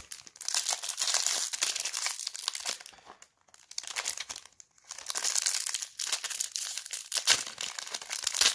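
Foil trading-card booster pack wrapper crinkling as it is handled and torn open, in three stretches broken by two short pauses.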